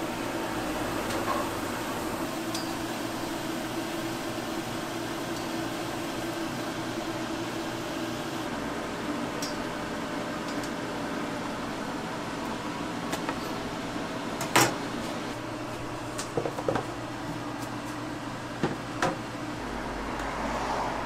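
Steady mechanical hum of a food stall's appliances, with a few sharp clicks and knocks of kitchen utensils, the loudest about two-thirds of the way through and several smaller ones after it.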